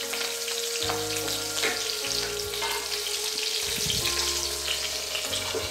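Green chilies, dry red chilies and curry leaves sizzling and crackling in hot oil in a non-stick frying pan, the tempering stage of an Indian dal curry.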